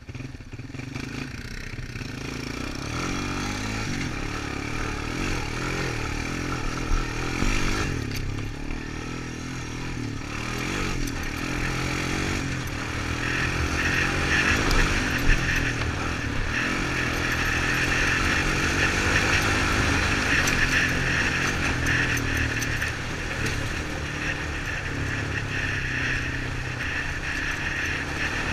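Honda Recon 250 ATV's single-cylinder four-stroke engine pulling away and running steadily under load along a dirt trail, with a couple of sharp clattering knocks partway through.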